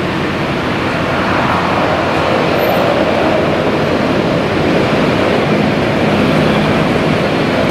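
Boeing 777-200ER's Rolls-Royce Trent 892 jet engines on landing approach: a steady, even jet noise growing slightly louder as the airliner comes in.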